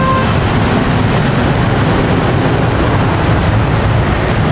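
Steady noise of busy street traffic, with a low rumble of passing engines.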